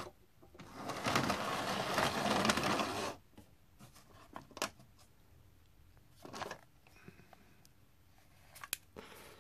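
Small electric motor of a Hornby OO gauge Class 37 model diesel locomotive whirring as it runs on the track, stopping after about three seconds. A few light clicks and knocks of the model being handled follow.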